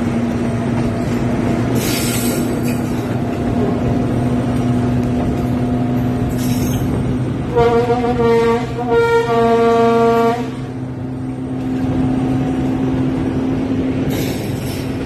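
TGM6 diesel-hydraulic locomotive running under way with a steady engine drone, sounding its horn in two blasts of about a second each, about halfway through. Two brief hisses come before the horn.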